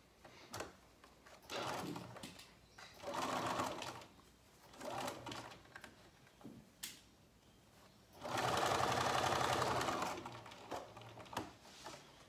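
Domestic sewing machine stitching a seam through fabric in several short stop-start runs, the longest and loudest lasting about two seconds, with small clicks between runs.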